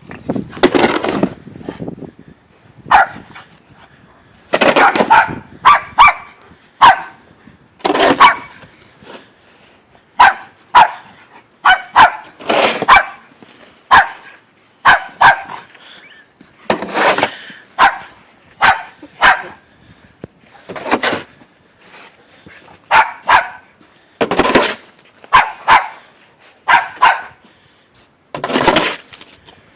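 Dog barking over and over in short play barks, some single and some in quick pairs, with brief pauses between them.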